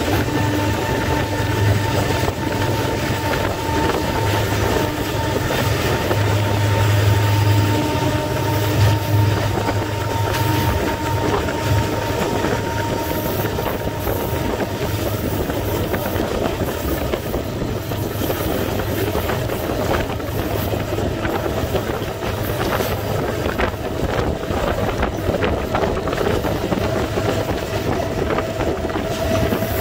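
Sri Lanka Railways Class M5c diesel locomotive, repowered with a Caterpillar 3516 engine, hauling its train at speed: a steady engine drone with wheels clicking over the rail joints and air rushing past the open window.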